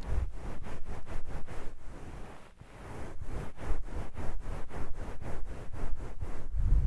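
Towel rubbed over the ASMR microphone in quick, even strokes, about four a second, dipping into a brief lull about two and a half seconds in before resuming.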